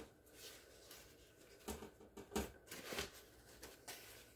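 A few faint taps and rustles as the last of the flour is shaken out of its container into a glass mixing bowl.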